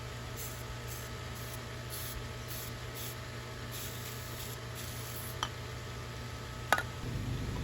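A series of short hissing spray bursts over a steady low hum, as a leak on a pool pump is sprayed. Two sharp clicks come near the end, the second louder, followed by a louder low rumble.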